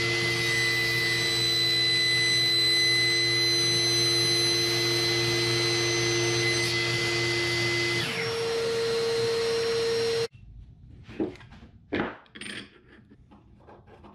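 Table saw running with a steady whine, its pitch dipping briefly about eight seconds in as the blade cuts through a wooden dowel on a crosscut sled. The sound stops suddenly about ten seconds in, followed by a few light knocks and clicks of handling.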